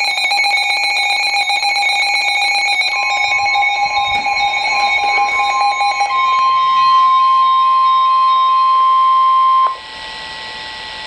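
Emergency alert attention tone: after a few seconds of layered electronic tones, a single steady high tone fades in, grows loud about six seconds in and cuts off suddenly near the end, just before the weather warning message.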